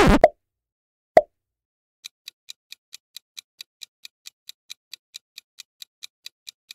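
Countdown-timer sound effect: an even clock-like ticking, about four to five ticks a second, starting about two seconds in. Before it, the tail of a short pop-like effect at the very start and a single sharp pop about a second in, the loudest sounds.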